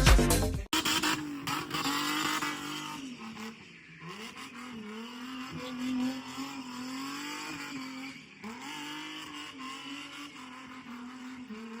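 Car engine running and being revved, its pitch rising and dipping unevenly.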